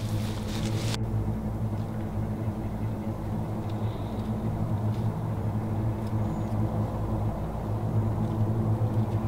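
A steady low drone made of a few stacked tones, like an engine running. A high hiss over it cuts off abruptly about a second in.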